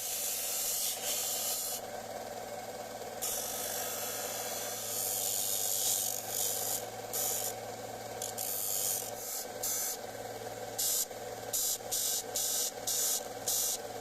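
An old steel chisel being rubbed against an abrasive, a scratchy hiss in long passes, turning to short quick strokes of about two a second near the end. A steady low hum runs underneath.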